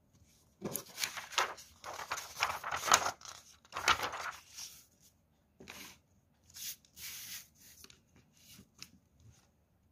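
A sheet of paper being handled and laid flat on a table, rustling and crinkling in a run of bursts for the first few seconds, then a few shorter rustles.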